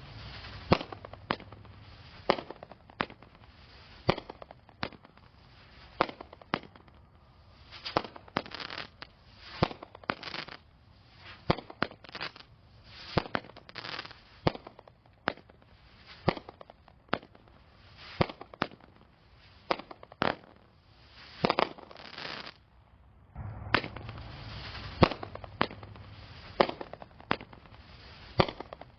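Magnus Fireworks 'Midnight Run' 200-gram consumer firework cake firing: a long run of sharp reports, irregular but about one or two a second, as the shots launch from their tubes and burst overhead.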